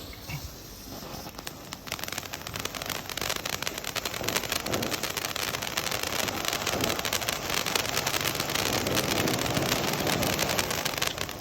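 Mini ice-cream cone fountain firework spraying with a dense, steady crackle that builds up about two seconds in.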